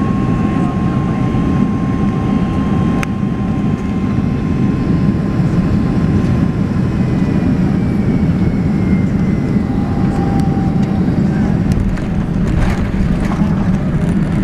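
Cabin noise of a jet airliner landing: a steady engine and airflow roar with faint engine whine tones slowly falling in pitch. There is a single click about three seconds in, and light rattling near the end as the aircraft rolls along the runway.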